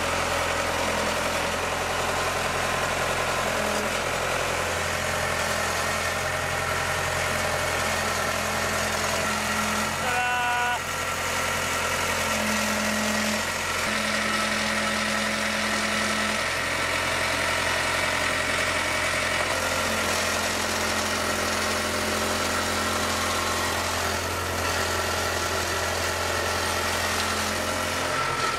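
Front-end loader's engine running at a steady idle, with a higher tone that comes and goes, while the loader hoists a truck engine and transmission.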